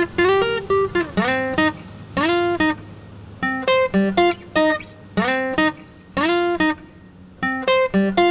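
Background music: an acoustic guitar playing short phrases of separate notes, many of them sliding up into pitch.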